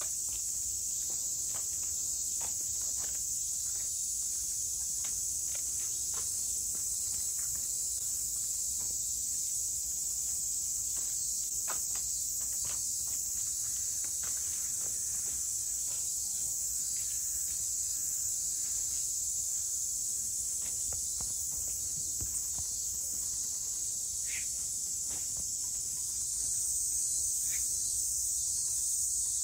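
Outdoor insect chorus: a steady, high-pitched shrill that runs on without a break and grows a little louder near the end, with scattered faint clicks beneath it.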